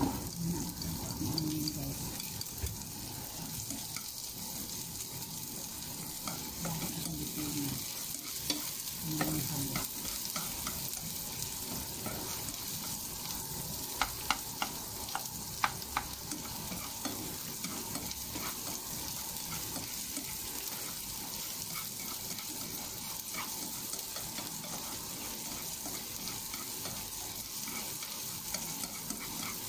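Chopped onion and minced garlic frying with a steady sizzle in oil in a nonstick pan as they are stirred, with a few sharp clicks of the utensil against the pan about halfway through.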